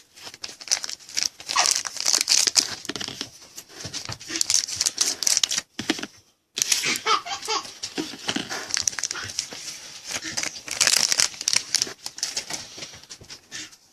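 Foil trading-card pack wrapper crinkling and tearing as it is opened by hand.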